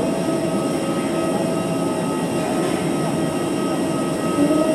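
Boeing 737-800's CFM56 turbofan engines running at low power as the airliner taxis: a steady rushing noise with a steady high whine over it.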